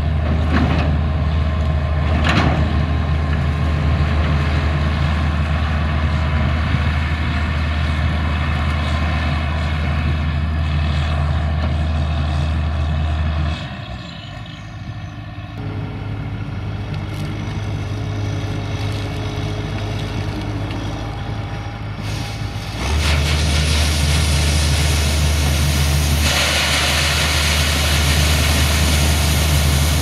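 Diesel farm machinery running steadily: a Fiat 1380DT tractor's engine close by, then, after a quieter stretch about halfway through, the Case IH 2166 Axial-Flow combine's engine up close. A rushing hiss joins near the end as the combine's unloading auger pours corn into the trailer.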